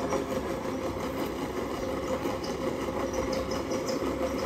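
Electric water-pump motor running with a steady, even hum, pumping water out of the backwater field.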